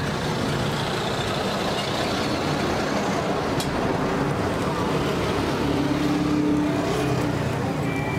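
Roadside traffic noise: vehicle engines running and passing in a steady wash, with a low engine hum rising a little about two-thirds of the way through.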